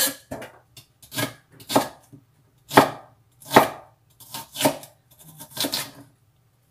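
Cleaver-style kitchen knife chopping white onion on a wooden cutting board: a run of sharp, irregular chops, one to three a second with short pauses between them.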